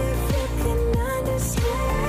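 Background music with a steady beat, a held melody line and repeated falling bass notes.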